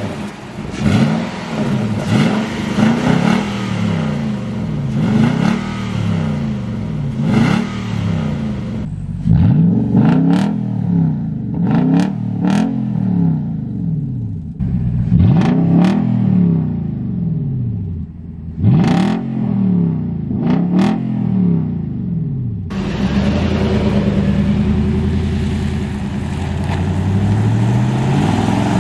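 2015 Nissan Titan's 5.6-litre VK56 V8 revving again and again through a louder cat-back exhaust with a smaller replacement muffler, its pitch rising and falling with each rev. Sharp pops crack between some revs in the middle, and the engine holds a steadier note near the end as the truck drives.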